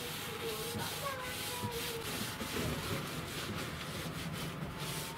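A paintbrush rubbing over bare wood in repeated, irregular strokes, working wood impregnant into an old window frame.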